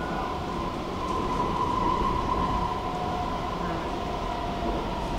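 Stockholm metro (tunnelbana) train running through the tunnel, heard from on board: a steady rumble with a high tone running through it that grows louder about a second in and eases off again.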